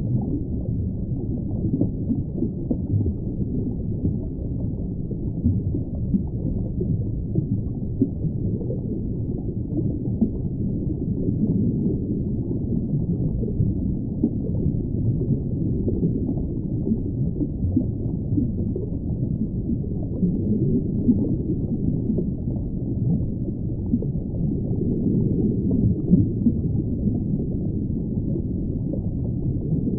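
Deep, muffled rushing water with small irregular swells and gurgles, steady throughout with no high sounds at all.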